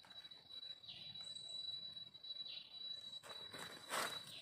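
Footsteps crunching through dry fallen leaves near the end, over a steady high-pitched insect drone. Two short falling calls sound about a second in and again midway.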